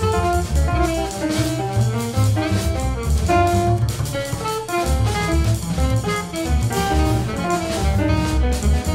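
Jazz quartet of alto saxophone, piano, double bass and drum kit playing, with pitched melody notes over low bass notes and frequent drum hits.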